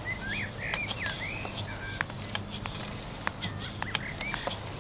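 Small birds chirping in short, repeated rising and falling calls, over scattered light clicks and scrapes of long-handled rakes spreading drying rice grain across the ground. A low steady hum runs underneath.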